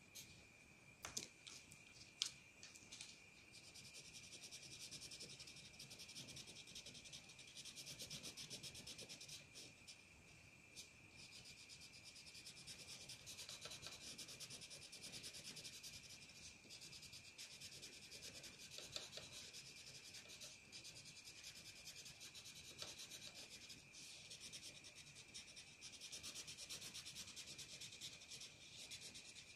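A crayon rubbing back and forth on paper, colouring in, a faint continuous scratching that starts a few seconds in. A few short clicks come in the first couple of seconds, and a faint steady high whine runs underneath.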